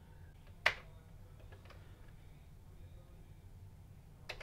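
Commodore 64 keyboard keys being pressed: one sharp key click about two-thirds of a second in, a few faint ticks, and another click near the end, over a low steady hum.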